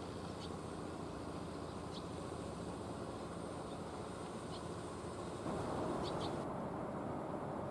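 A steady low hum and rushing background with a few short, high bird chirps scattered through it. The background steps up in loudness about five and a half seconds in.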